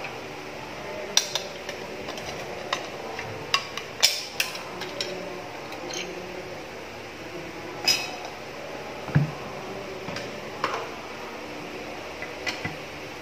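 Irregular metallic clicks, clinks and knocks of tools and small parts as a clothes iron is taken apart, with a duller knock about nine seconds in.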